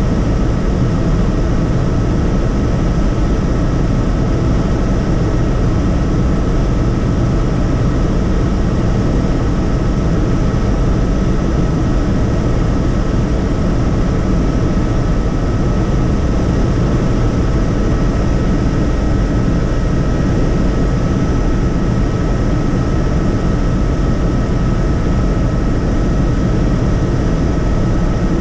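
Tour helicopter's engine and rotors running steadily, heard from on board as a loud, even drone with a thin, steady high whine over it.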